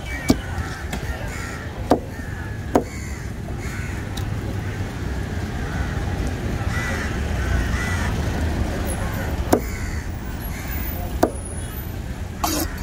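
A heavy cleaver chopping yellowfin tuna into chunks on a wooden block: about half a dozen sharp chops, three in the first few seconds and three in the last few, with a long gap between. Crows caw over a steady low hum of traffic.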